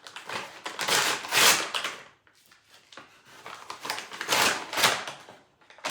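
Plastic packaging bag rustling and crinkling as it is handled and opened by hand, in two bouts with a short quiet pause between.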